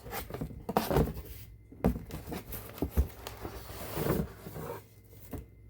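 A cardboard sneaker box and the shoes being handled: rustling with several knocks and thumps, about one a second, settling down near the end.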